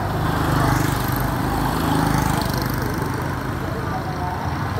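Small motorbike and scooter engines running as they ride past close by on a street, growing louder about a second in and again around two seconds in.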